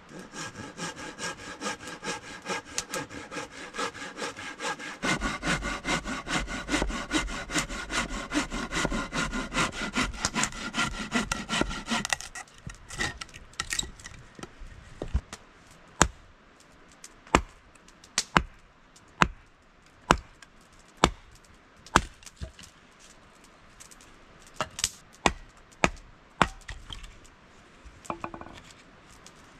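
Hand saw cutting through wood with quick back-and-forth strokes, the blade ringing. It stops about twelve seconds in, and then come separate sharp knocks and cracks of wood, about one a second.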